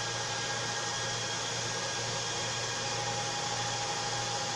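Steady whirring rush of a cooling fan, with a thin steady whine and a faint low hum in it.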